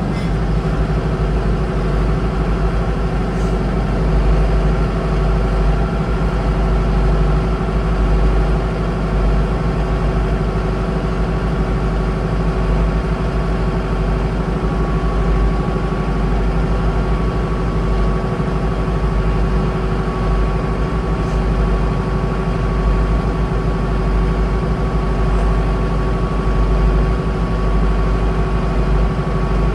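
Mahindra diesel tractor engine running steadily at a constant pitch, with a faint steady whine joining in about halfway through.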